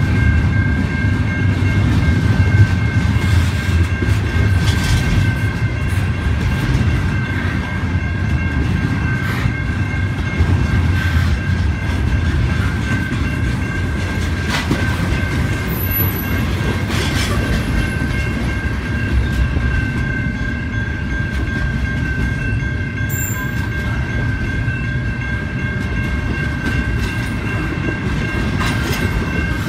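Double-stack intermodal well cars rolling past close by: a steady heavy rumble of steel wheels on rail, with clicks and clacks over the joints. A steady high ringing tone runs underneath throughout.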